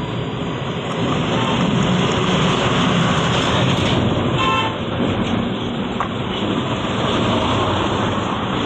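Road traffic passing close by: a steady rush of engine and tyre noise that swells about a second in, with a short horn toot about four and a half seconds in.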